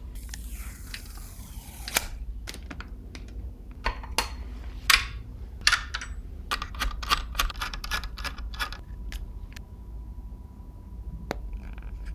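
Computer parts and packaging being handled: a brief rustle, then a quick run of sharp clicks and taps of hard plastic and metal, thinning out near the end.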